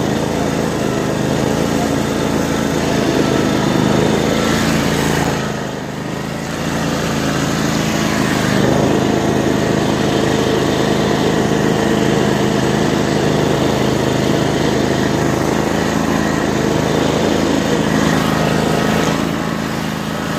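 Riding lawn mower's small engine running steadily under way, with a brief drop in loudness about six seconds in.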